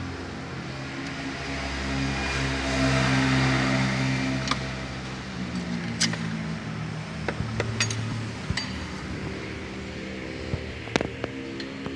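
Metal hand tools clicking and clinking against a scooter's starter motor as a T-handle wrench is worked on its mounting bolts, with a string of sharp clicks in the second half. Under them runs a steady mechanical hum that swells a little in the first few seconds.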